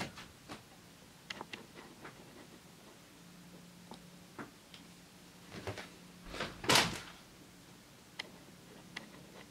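Quiet handling sounds as a printed vinyl laptop-skin sheet is moved about and set aside: scattered light clicks and rustles, with one louder rustle about two-thirds of the way through. A faint steady low hum comes in about a third of the way through.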